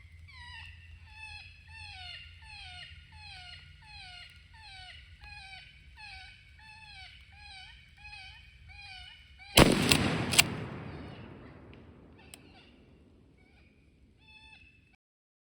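Electronic predator call playing a cottontail rabbit distress sound: repeated falling squeals, about one and a half a second. About nine and a half seconds in, two shotgun shots about a second apart cut it off, the first the loudest, with a long echo rolling away after them.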